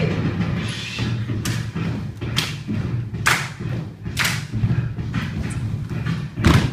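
Dancers' feet stomping and landing on a wooden floor in time with the routine: sharp thumps about once a second, with a heavier thump near the end.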